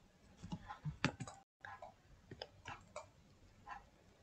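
Faint, scattered clicks of a computer mouse and keyboard, a few a second.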